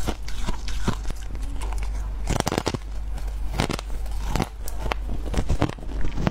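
Freezer frost being bitten and chewed: a series of sharp, crisp crunches at irregular intervals.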